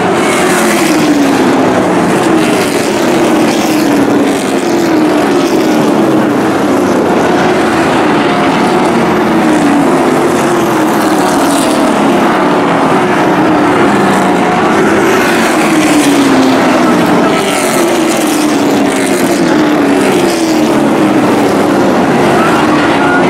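Several short-track race trucks running hard around the oval, engines at racing speed, their pitch sliding down again and again as one truck after another goes past.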